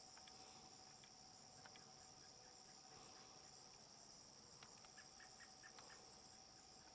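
Faint insect chorus: a steady high trill with scattered short chirps, and a faint steady hum underneath.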